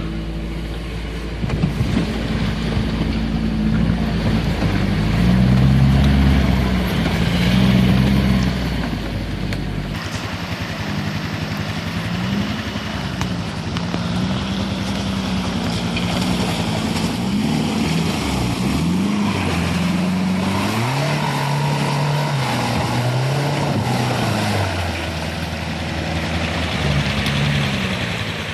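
An off-road vehicle's engine working over rough ground, its pitch rising and falling again and again. A steady low drone runs under it for the first third and stops abruptly.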